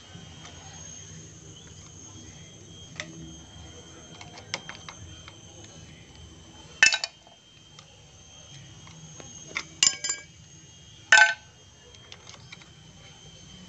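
Metal clutch parts and hand tools clinking and knocking while a motorcycle clutch is taken apart by hand. There are scattered light clicks and a few sharp, ringing metal clanks, the loudest about seven, ten and eleven seconds in.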